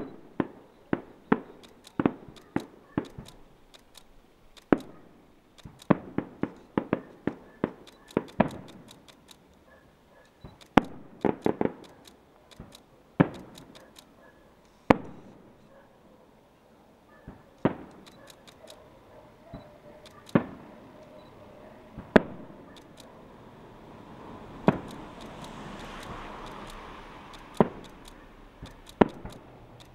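Aerial firework shells bursting in an irregular series of sharp bangs, in quick runs during the first half and more widely spaced later, with a swelling hiss about 25 seconds in.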